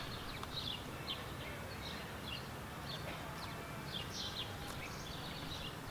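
Small birds chirping: many short, high chirps, a few each second, over a low steady background hum.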